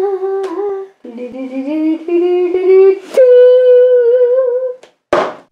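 A child's voice sings a wordless tune: a held note, a quick run of rising notes, then a long, higher held note. Sharp clicks come about half a second in and about three seconds in, and a short noisy burst comes near the end.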